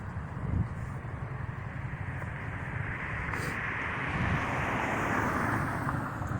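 Double-stack freight train rolling past: a steady low rumble with wheel-on-rail noise that swells in the middle and then eases off, and no horn.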